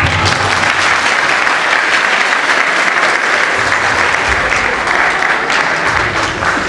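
Audience and cast applauding: dense, steady clapping throughout.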